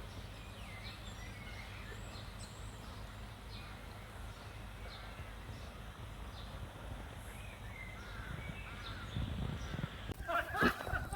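Birds chirping now and then in short, scattered calls over a steady low outdoor rumble. About ten seconds in, a person's voice starts.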